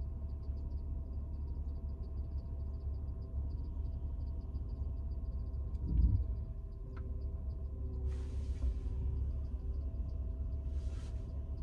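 Car engine idling, heard from inside the cabin as a steady low rumble, with a soft bump about six seconds in.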